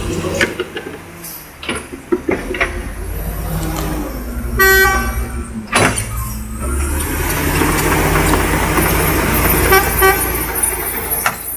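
Heavy logging truck's diesel engine working under load, growing louder in the second half. A truck horn sounds for about half a second around five seconds in and again briefly near the end, with a few sharp knocks before the first horn.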